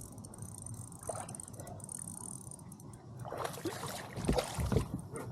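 Hooked smallmouth bass splashing at the surface as it is played up to the boat: a quiet stretch, then irregular splashing and handling noise from about three seconds in, growing stronger toward the end.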